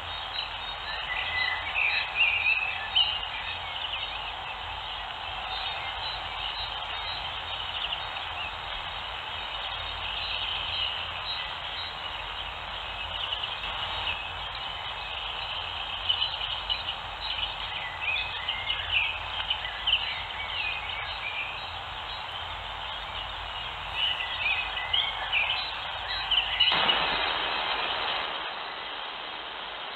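Small birds chirping in short, scattered calls over a steady hiss and low hum, as picked up by a nest-box camera's microphone.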